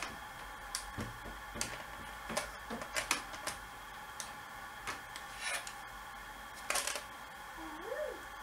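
Irregular light clicks and taps of plastic quadcopter frame parts, motor housings and wire connectors being handled as the motors are slotted back into the arms and plugged into the main board.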